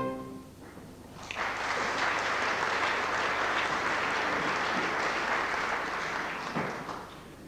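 Live theatre audience applauding at the close of an orchestral number: the last held chord dies away at the very start, the clapping begins about a second in, and it fades out near the end.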